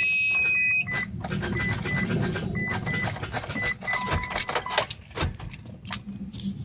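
A held electronic tone, then a string of short, evenly spaced electronic beeps, over scattered clicks and rattles.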